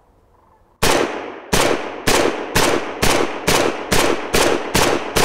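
A Romanian WASR-10 AK rifle in 7.62×39 firing a rapid string of semi-automatic shots, about two a second, starting about a second in. There are about ten sharp shots, each followed by a short echo.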